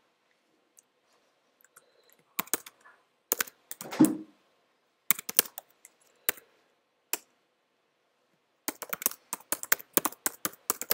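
Computer keyboard being typed on, as a shell command and then a password are entered: scattered keystrokes in small groups with one heavier thud about four seconds in, a short pause, then a fast run of keystrokes near the end.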